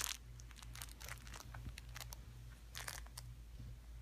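Kittens at play, their claws scratching and scrabbling: scattered sharp scratches and clicks over a steady low hum.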